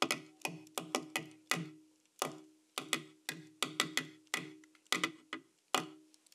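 A Sharpie pen tapped out a drum rhythm: an uneven, syncopated run of sharp taps, about three a second, each with a short ringing note.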